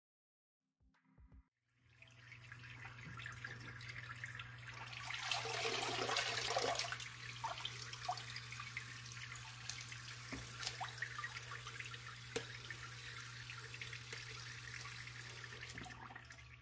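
Water splashing and bubbling in an aquarium filter sump tub over a steady low hum, with a few sharp drips. It starts about two seconds in and is loudest for a couple of seconds in the middle.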